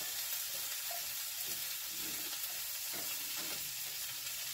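Chopped vegetables sizzling in olive oil in a hot cast-iron skillet, a steady hiss, with a few faint scrapes of a spatula stirring them.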